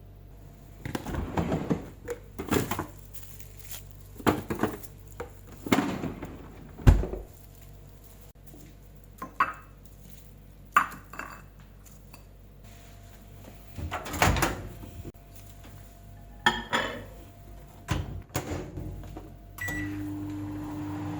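Dishes and containers knocking and clattering as they are handled on a counter. Near the end a microwave oven beeps once and starts running with a steady hum.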